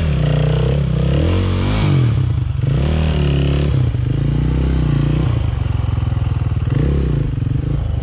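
Yamaha WR450F's single-cylinder four-stroke engine revving in repeated surges, pitch rising and dropping several times, as the bike is ridden and pushed out of a mud hole.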